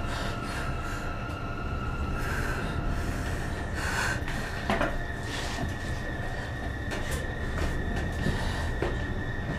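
Dark ambient drone: a steady low rumble with a sustained high tone that steps up in pitch about four seconds in, and a few soft knocks.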